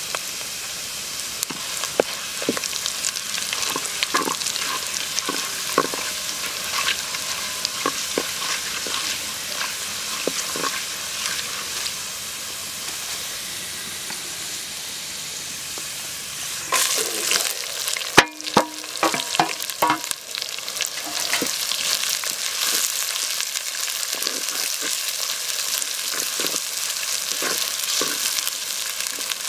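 Hot oil sizzling in a clay pot, tempering mustard seeds, dal and dried red chillies, with scattered crackling pops. About 17 seconds in, the sizzle surges loudly as sliced onions go into the oil, with a sharp knock, then settles into a steady, louder frying hiss as the onions are stirred with a wooden spatula.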